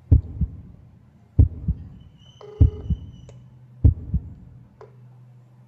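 Heartbeat sound effect: four slow double thumps, each pair about a second and a quarter after the last, over a steady low hum while the call rings out, with a brief high tone about halfway through.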